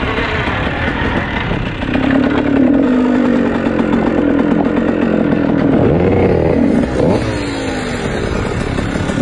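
Dirt bike engine heard from onboard, running hard up a rough trail: a steady note from about two seconds in, then the revs drop and climb back sharply about seven seconds in, rising and falling with the throttle after that.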